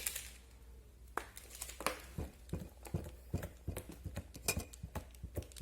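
Clear slime being handled and pressed while liquid chalk goes onto it, making a string of irregular small sticky clicks and squelches.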